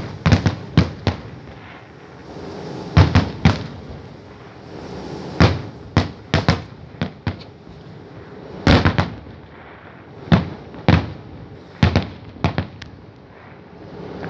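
Aerial firework shells bursting: an irregular series of sharp bangs, some single and some in quick clusters of two or three, about twenty in all.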